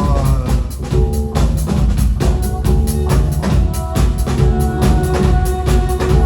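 Live rock band playing an instrumental stretch between vocal lines: drum kit keeping a steady beat over a heavy bass line, with held keyboard-like notes.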